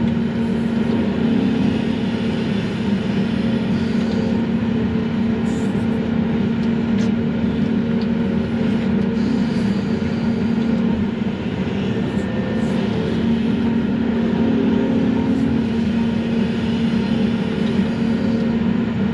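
Volvo excavator's diesel engine and hydraulics running steadily, heard from inside the closed cab, as the grapple swings and works into a brush pile, with a constant low hum.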